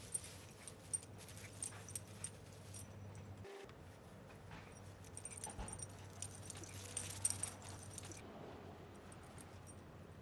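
Small dogs at play: faint scuffling with sharp clicks, the loudest about a second in and near seven seconds.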